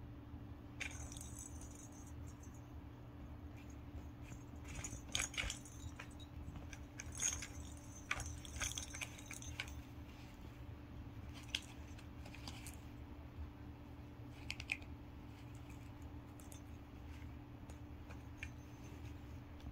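Small toy bell ball jingling and clicking in irregular bursts as a cat bats it inside a cardboard accordion scratcher, busiest in the middle, then a few lone jingles later.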